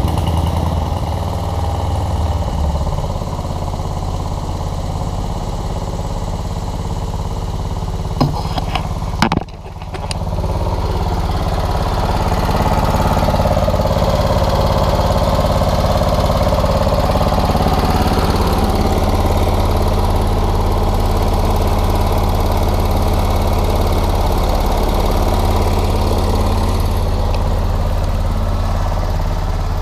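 Small engine-driven machinery running steadily, the Trac Vac sawdust vacuum hooked to the sawmill. About nine seconds in come a few sharp knocks and a brief drop in level. After that it runs louder and fuller, holding steady.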